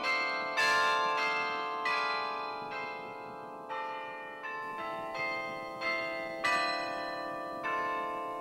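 Church-tower carillon playing a slow tune: single bell notes struck about once or twice a second, each ringing on and overlapping the next.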